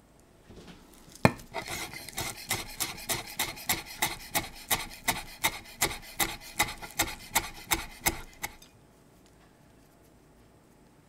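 Chef's knife chopping parsley finely on a wooden cutting board: rhythmic knocks of the blade against the board, about three a second. The chopping starts with one sharp knock about a second in and stops about eight seconds in.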